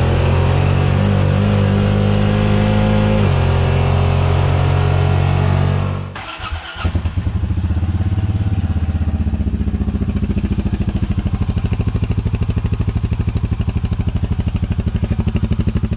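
Honda Pioneer 700 side-by-side's single-cylinder engine breathing through a free-flowing aluminum exhaust tip. It first runs under load while driving, its pitch changing in steps. After a sudden break about six seconds in, it idles with an even, pulsing exhaust beat.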